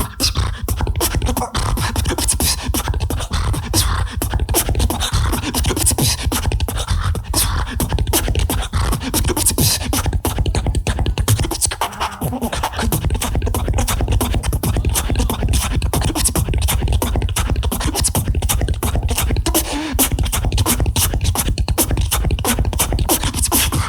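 Beatboxer performing a fast battle routine: rapid vocal kick, snare and hi-hat sounds over a continuous deep bass, with short breaks in the bass about twelve and twenty seconds in.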